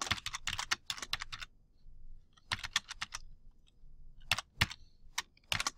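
Typing on a computer keyboard: a quick run of keystrokes, a pause of about a second, another short run, then a few separate key presses near the end.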